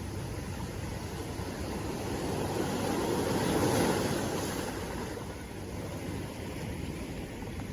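Sea waves: the surf swells to one peak about halfway through, then washes back down.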